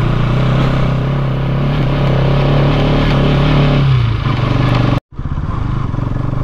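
Motorcycle engine pulling steadily up a steep hill climb. About four seconds in its note drops away. A moment later the sound cuts out completely for an instant and then resumes.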